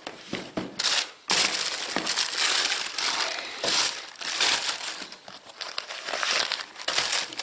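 Tissue paper crinkling and rustling in irregular bursts as hands pull a shoe out of its paper wrapping in a cardboard shoebox.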